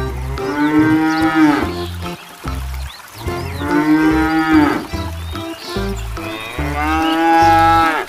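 Battery-operated walking toy cow playing its recorded moo through its speaker: three long moos, each falling in pitch at the end.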